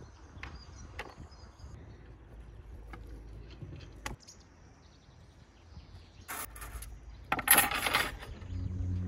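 Faint taps of food preparation on a wooden table. About six seconds in comes a short scrape, and a second later the loudest sound: a scraping rattle of long metal kebab skewers being handled.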